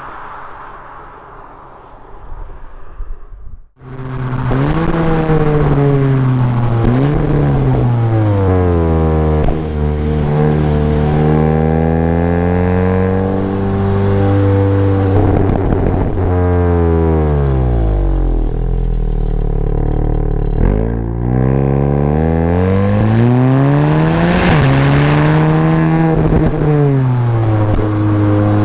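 A VW Golf GTI TCR's 2.0-litre turbocharged four-cylinder being revved through its exhaust, rising and falling in pitch several times and settling back to idle about halfway through before revving up again. The first few seconds hold a fading engine sound that cuts off abruptly.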